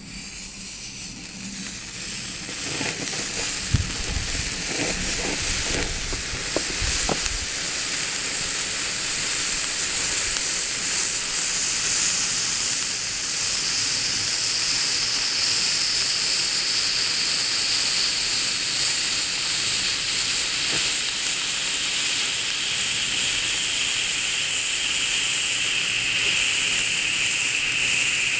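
Three ice fountains (indoor spark fountains) hissing as they burn. The hiss swells over the first several seconds as they catch, then holds steady and loud, with its brightest part slowly lowering in pitch. A few low rumbles and knocks come in the first seconds.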